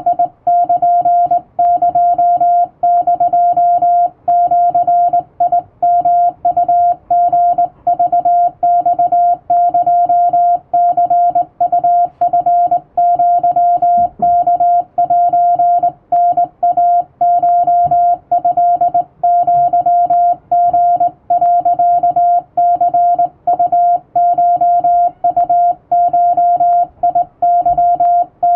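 Morse code sent by hand on a vertical straight key: a single steady tone switched on and off in dots and dashes, spelling out Japanese Wabun Morse code from telegram practice text.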